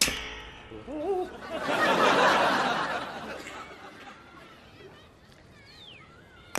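Studio audience laughing for about two seconds, the loudest sound here, just after a short wordless vocal noise. Sharp taps at the very start and very end, with a few faint bird chirps near the end.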